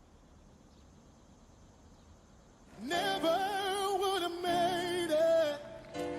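Near silence for almost three seconds, then a gospel vocal begins: a singer holds long notes with a wide vibrato, and lower backing tones join about halfway through.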